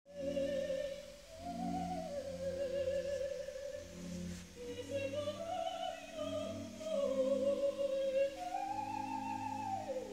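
Opera-style music played back on a Pioneer SX-1050 stereo receiver: a high singing voice holds long, wavering notes that glide up and down over a low, steady accompaniment.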